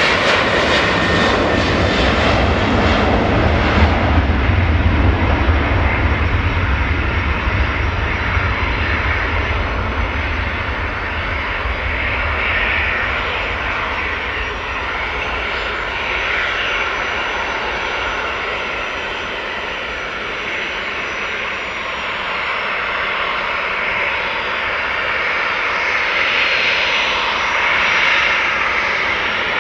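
Boeing 737-500's CFM56 jet engines running loud and steady, with a high whine over a broad rush. A deep rumble underneath dies away about eight seconds in.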